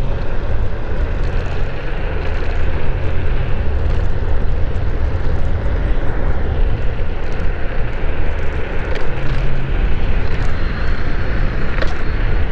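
Wind buffeting the microphone and tyre noise from a TEVERUN Blade Mini electric kick scooter ridden at speed in dual-motor turbo mode: a loud, steady low rush with no breaks.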